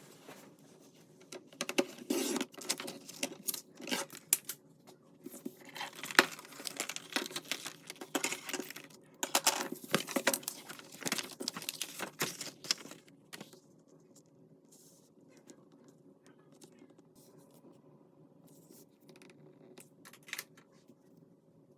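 Paper craft materials being handled close up: sheets rustling and crackling, with quick taps and clicks. The handling is busy for about the first twelve seconds, then dies down to a few faint ticks over a low steady hum.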